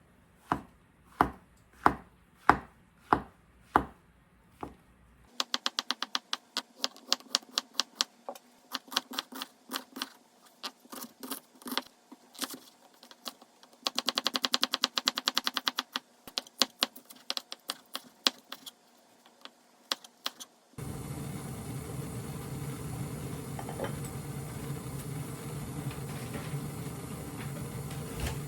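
Knife chopping on a cutting board: slow, evenly spaced strokes for the first few seconds, then quicker, denser chopping with a very rapid run in the middle. About two-thirds of the way through the chopping stops and a steady whirring noise with a low hum takes over.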